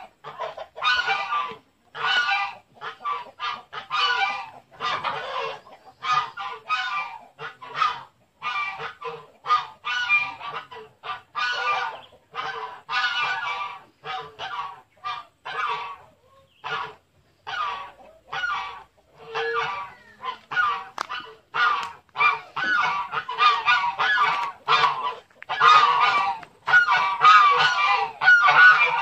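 Flock of domestic geese honking: many short calls in quick succession with brief gaps.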